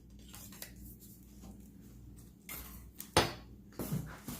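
Light handling of kitchenware being unpacked: faint rustling, then a sharp click about three seconds in and a couple of smaller knocks just after.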